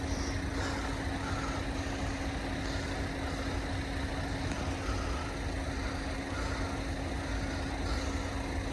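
A stationary vehicle running with a steady hum, an unchanging single low tone over a low rumble.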